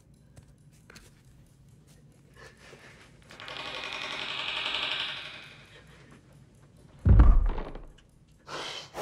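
A sudden heavy, deep thud about seven seconds in, the loudest sound. Before it, a hissing rattle swells and fades for about two seconds over a faint low hum.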